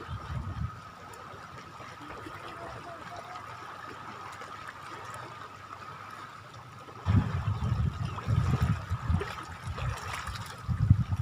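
Shore water trickling and lapping. From about seven seconds in, a louder, uneven low rumbling joins it.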